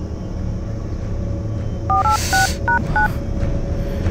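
Phone keypad dialing tones: about five quick two-note beeps in a row, about two seconds in, over a steady low background rumble.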